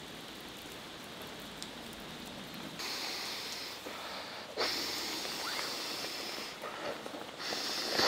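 Steady rain falling, with three louder hissing stretches of a second or two each.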